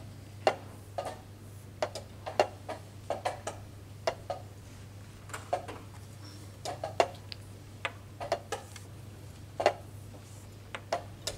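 Wooden chess pieces being set down on a wooden board and chess clock buttons pressed during quick rapid-chess moves: sharp clicks and knocks, often in pairs, a few each second at uneven intervals, over a low steady hum.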